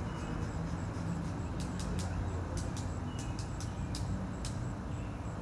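Steady low outdoor background rumble, with a run of faint, sharp, high clicks from about one and a half to four and a half seconds in.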